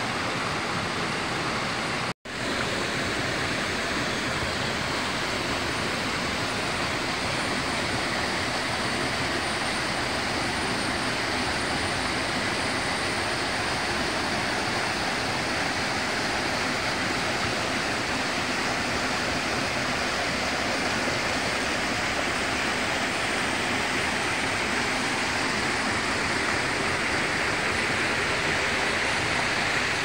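Steady rush of water pouring over boulders in a rocky stream's small cascades, broken once by a split-second dropout about two seconds in.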